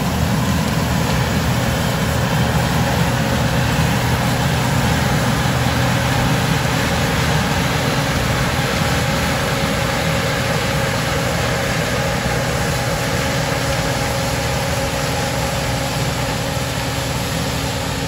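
Case IH 2388 combine running at harvesting load as it cuts and threshes corn, a loud steady drone of engine and machinery that eases slightly near the end as it moves away.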